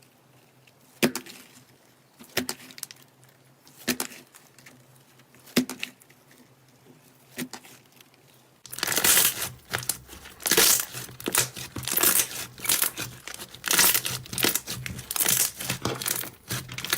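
Slime being played with by hand: single sharp pops about every second and a half, then from about nine seconds in, loud, dense crackling as the slime is squeezed and kneaded.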